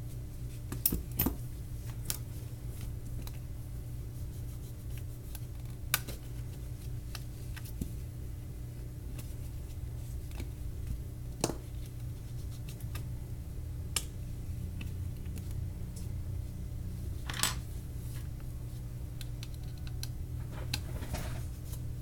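Scattered light clicks and taps, a handful over several seconds, from small tools and phone parts handled on a work surface, over a steady low hum.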